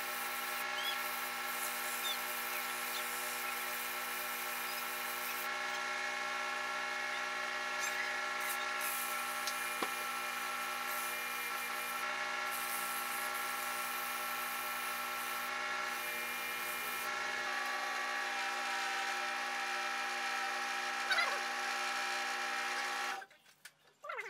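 Small benchtop wood lathe's electric motor running with a steady whine, with the hiss of a hand-held sanding pad pressed against the spinning wooden workpiece. The running sound stops suddenly near the end.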